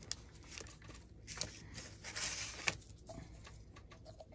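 Soft rustling and crinkling of glued paper being smoothed down with gloved hands, with scattered light clicks and one sharper tap about two-thirds of the way in.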